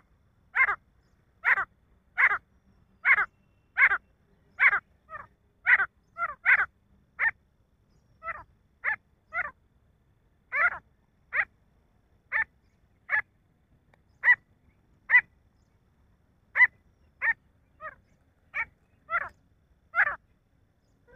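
Male grey francolin calling: a long series of short, sharp, loud calls about every three-quarters of a second, with a couple of brief pauses partway through.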